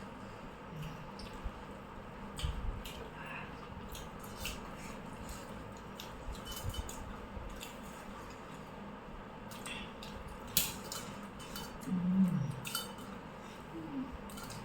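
Cutlery clinking and scraping on plates while eating, scattered light clicks throughout, with a brief low voice sound about twelve seconds in.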